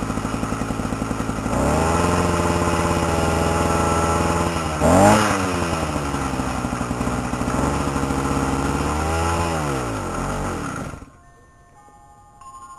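Two-stroke gasoline engine kit on a bicycle running at idle, then revved up and held. It gives one sharp blip about five seconds in, rises and falls again, and cuts off suddenly about eleven seconds in.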